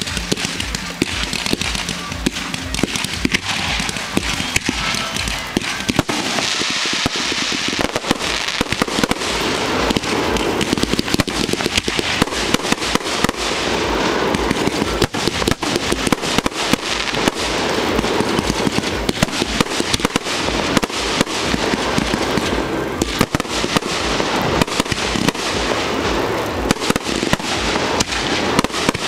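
Aerial fireworks display heard at close range: shells bursting in quick succession, with sharp bangs and crackling many times a second, without a pause.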